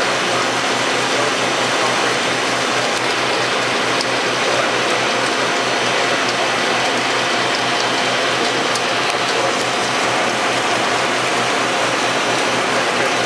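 Large Waldrich Coburg universal machining center running, a steady dense mechanical rattle that never lets up.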